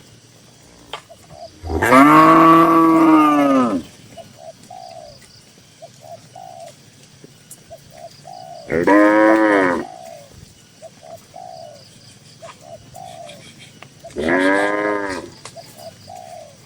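Cattle mooing in a shed: three loud moos, the first a long one of about two seconds near the start, then shorter ones near the middle and near the end. Faint, short cooing calls repeat between them.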